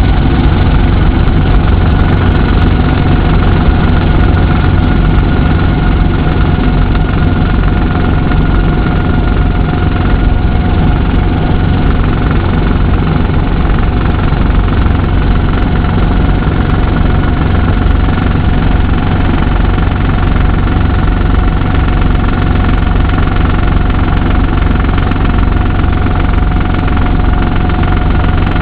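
Brantly helicopter's piston engine and rotor running steadily in flight, loud and unchanging, heard from inside the small cockpit.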